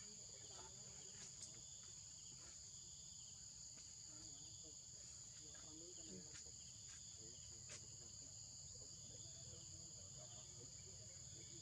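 Forest insects, crickets or cicadas, droning steadily in two high bands, with a softer pulsing call repeating every second or so beneath them. Faint distant human voices come and go underneath.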